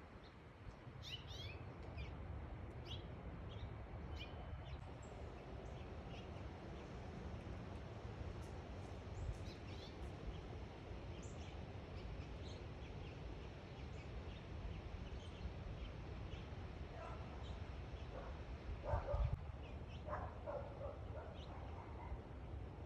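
Small backyard songbirds chirping sporadically in short high notes over a steady low background rumble. A cluster of louder, lower-pitched calls comes in the last few seconds.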